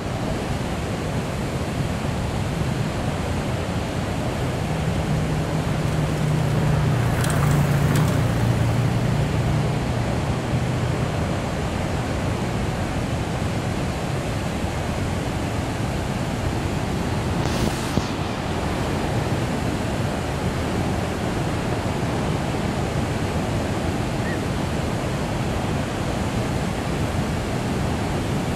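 Waterfall: a steady, loud rush of falling water, with a low rumble swelling for a few seconds about a quarter of the way in and a few brief knocks.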